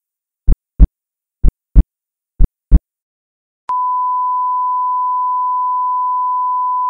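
Heartbeat sound effect: three double thumps about a second apart, then after a short silence a steady single-pitch electronic beep that starts a little past halfway and holds without a break, like a heart monitor's flatline tone.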